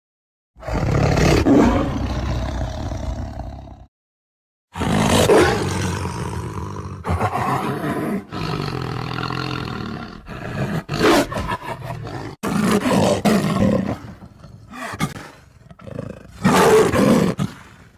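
Tiger roaring: one long roar, a brief silence, then a further roar breaking into a string of shorter roars and growls.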